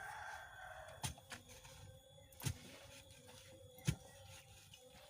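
Manual well drilling: dull, regular thuds from the hand-worked drill pipe striking into the soil, about one every second and a half.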